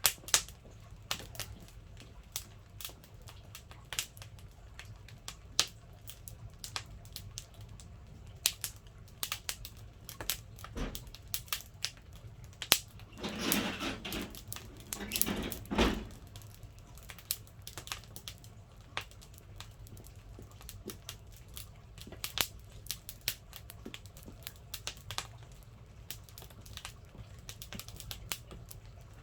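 Firewood crackling and popping as it burns in a wood stove, a steady run of sharp irregular snaps. About halfway through there is a louder rustling scrape lasting a couple of seconds.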